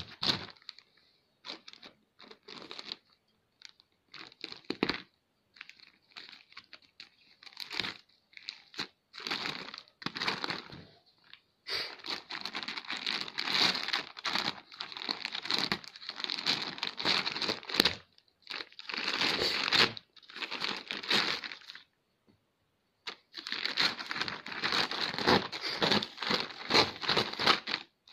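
Plastic courier mailer bag being handled and torn open, crinkling and tearing. The first part is scattered short rustles, then the crinkling runs almost without a break, with a brief pause a few seconds before the end.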